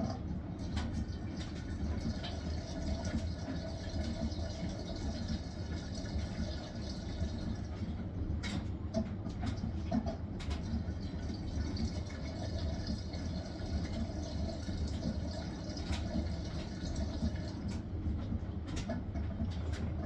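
Hisense washing machine running: a steady low hum with water swishing and running inside the machine, and scattered faint clicks.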